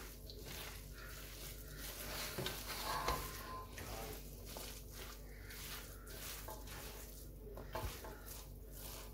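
A hand mixing a ground beef and lentil kebab mixture in a stainless steel bowl: soft, irregular rustling strokes.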